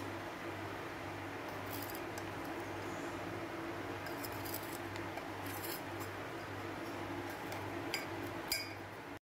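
A spatula scraping powdered sugar out of a steel bowl into another steel bowl, with a few faint clinks against the metal over a steady low hum. It cuts off abruptly near the end.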